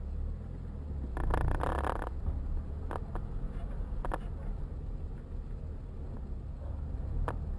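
Low steady rumble of a car driving, heard from inside the vehicle, with a brief swell of noise about a second in and a few faint clicks.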